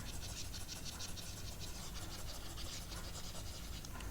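Eraser rubbed rapidly back and forth over a writing surface, about six scratchy strokes a second, wiping out written text. The rubbing stops just before the end.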